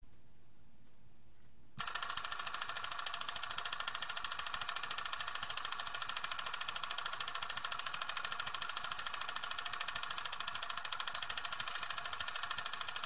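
Faint hiss, then about two seconds in a steady, fast, evenly pulsing mechanical noise starts and keeps going.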